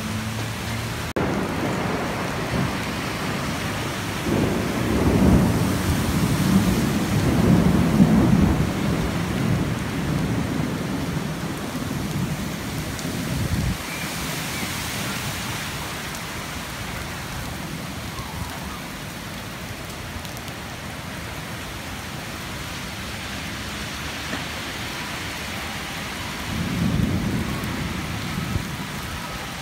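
Heavy downpour of rain hissing steadily, with low rolls of thunder: a long rumble starting about four seconds in and fading over several seconds, and a shorter one near the end.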